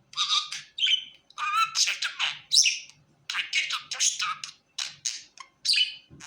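Pet budgerigar chattering and warbling in quick, broken bursts of chirps and squawks.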